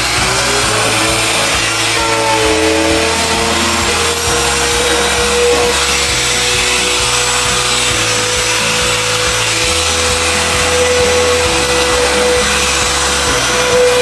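Trim router switched on and cutting into a wooden drawer front to make the recess for a drawer lock: a high whine that climbs in pitch over the first few seconds as the motor spins up, then holds steady with a hiss of cutting wood.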